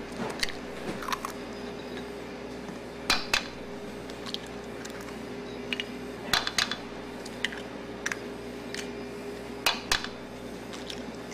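Eggs being cracked one after another against the rim of a stainless steel mixing bowl: a sharp knock every second or two, some in quick pairs, over a steady low hum.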